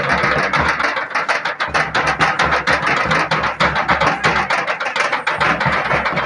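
Several two-headed barrel hand drums played together in a fast, steady folk-dance rhythm, with rapid beats several times a second.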